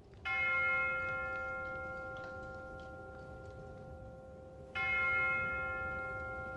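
A deep bell struck twice, about four and a half seconds apart, each stroke ringing on and slowly fading.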